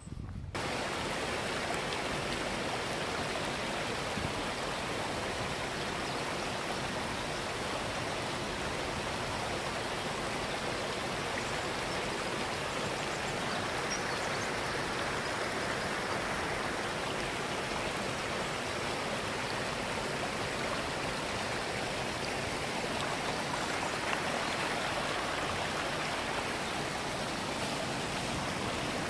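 A small river's water rushing, a steady even rush that starts abruptly about half a second in.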